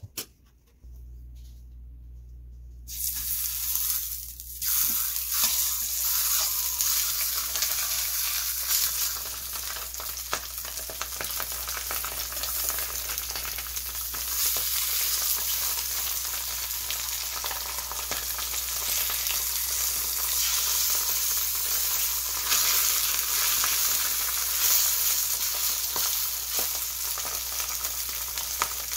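Mackerel fillets sizzling and frying in hot oil in a stainless steel pan. The sizzle starts about three seconds in and flares up several times as more fillets are laid in. A low steady hum runs underneath.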